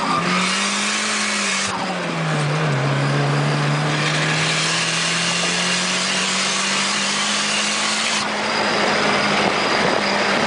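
Nissan 240SX's turbocharged engine heard from inside the cabin as the car drives on track. The engine note dips about two seconds in, then climbs slowly and holds as the car runs down a straight, over steady road and wind noise.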